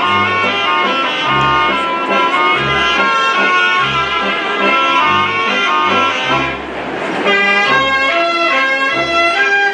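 Brass band playing a lively dance tune for the giants' dance, trumpets carrying the melody over a bass line that pulses about every half second or so. The music dips briefly about two-thirds of the way through.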